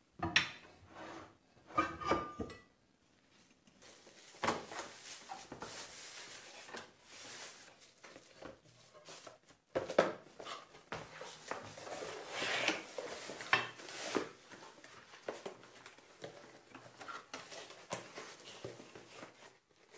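Cookware being handled: a few sharp knocks of pans and a baking dish, then a thin plastic bag crinkling as it is pulled off, with scattered light clinks and taps of the dish and pots.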